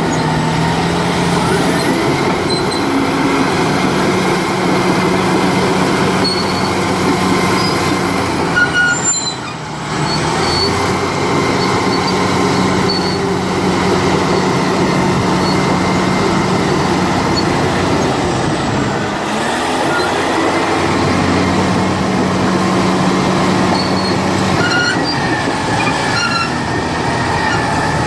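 Caterpillar D8R crawler dozer running: a steady diesel engine hum with high squeaks and squeals from the steel track running gear. The engine note dips briefly about a third of the way in, and again around two thirds of the way through.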